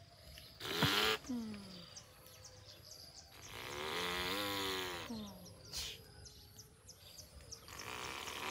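Two drawn-out voiced calls, a short one about a second in and a longer one a few seconds later, each sliding down in pitch at the end, followed by faint chirping about three times a second.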